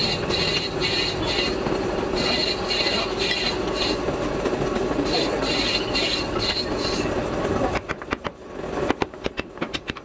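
Steady loud mechanical din with a high, rhythmic pulsing, which gives way about eight seconds in to a run of sharp knocks as a wooden bell pattern is tapped down into the sand of a moulding box.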